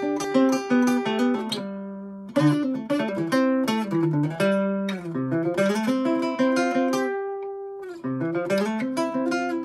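Sunburst hollow-body f-hole acoustic guitar played solo, picked chords with a melody moving over them. A chord is left to ring about two seconds in, and a long note rings out again later before the picking resumes.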